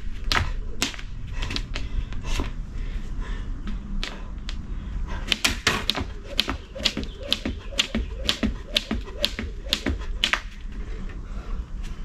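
Skipping rope slapping the ground in a rhythm of about two slaps a second, with sparser slaps in the first few seconds.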